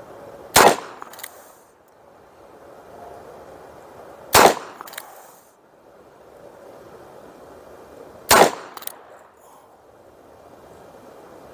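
Three single shots from a Herter's .357 Magnum revolver firing .38 Special rounds, spaced about four seconds apart.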